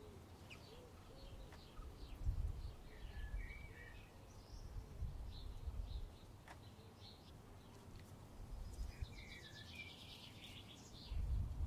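Small birds chirping and singing in short phrases in the background, over a low fluctuating rumble that swells near the end.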